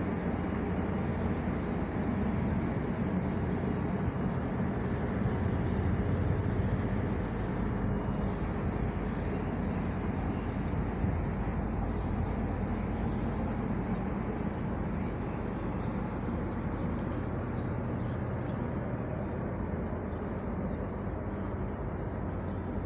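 Steady low rumble and hum of the tug Dorothy Ann's diesel engines as the tug and its barge Pathfinder pass close by, easing off a little in the second half as the tug draws away.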